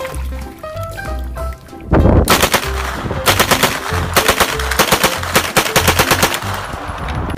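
Rapid automatic gunfire, a long burst of fast evenly spaced shots starting about two seconds in, over background music with a steady bass line.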